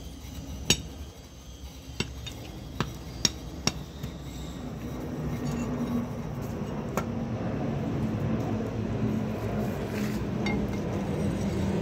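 Steel sounding tools clinking together sharply, about five separate clinks in the first four seconds and one more about seven seconds in. From about five seconds in, a low steady engine hum builds underneath.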